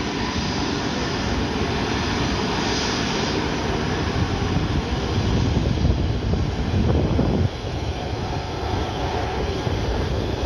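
Boeing 737-300F's CFM56-3 jet engines giving a steady, deep rumble as the freighter departs, dropping suddenly in level about three-quarters of the way through.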